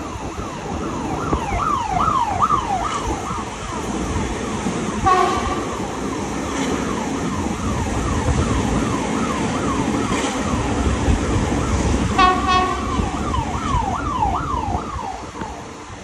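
An emergency vehicle's siren in a fast yelp, rising and falling about three times a second, with two short blaring blasts about five and twelve seconds in, fading near the end. Under it runs the steady low rumble of the moving train.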